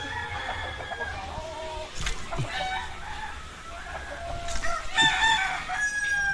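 Chickens clucking and a rooster crowing, the loudest crow starting about five seconds in.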